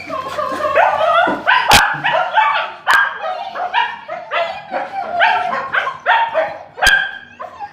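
Two excited dogs greeting an arriving owner with rapid, high-pitched yips, whines and choked barks, one call after another. A few sharp knocks sound among them.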